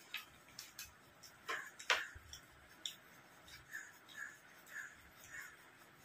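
Eating sounds: sharp mouth clicks and smacks from chewing, with fingers working food on plates, then a run of soft, regular smacks about twice a second in the middle.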